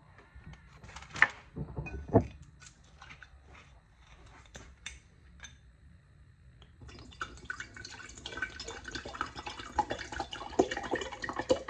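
A metal spoon clinks against a glass mason jar while stirring powder, with a few sharp knocks. About seven seconds in, water starts pouring from a glass bottle into the jar, splashing until the end.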